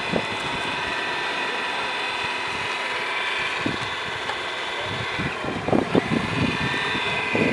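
Steady electric whine of a radio-controlled model excavator working its boom and bucket in sand, with a few short knocks and clatters about two-thirds of the way through and again near the end.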